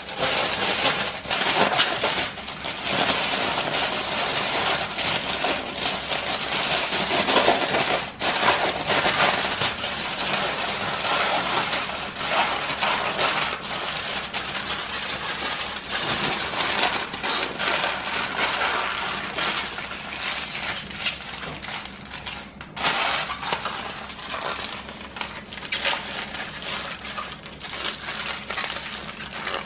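Aluminium foil crinkling and crackling continuously as it is folded and crimped by hand into a tight double-wrapped parcel.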